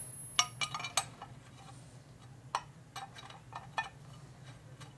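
Metal parts and bolts being handled and fitted by hand: a quick cluster of sharp clicks and clinks in the first second, then scattered lighter ticks, over a steady low hum.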